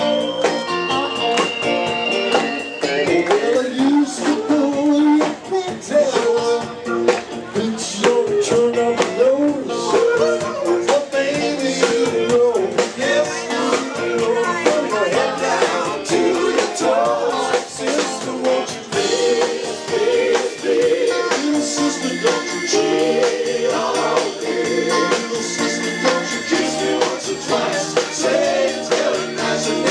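Live rock band playing: a man sings lead into a microphone over electric bass guitar, with drums and cymbals keeping the beat.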